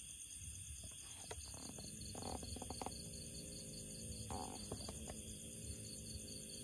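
A dog sniffing and nosing through dry leaves on the ground: short clusters of sniffs and leaf rustles about two seconds in and again past four seconds, over a steady high-pitched background hiss.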